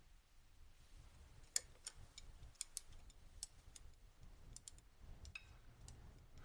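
Chopsticks and a spoon clicking against a noodle bowl during eating: about a dozen faint, irregular clicks starting about a second and a half in, over a low steady room hum.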